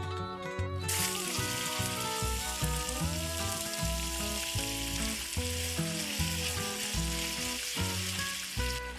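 Food frying in a hot pan, a loud, dense sizzle that starts suddenly about a second in and cuts off near the end, over background music with a steady beat.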